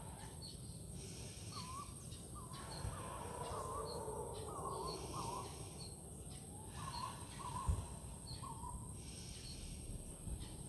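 Tropical forest ambience: a bird gives a run of short, looping calls in two bouts, over a steady high insect hum and a faint chirp repeating a little more than once a second. A soft low thump about three quarters of the way in.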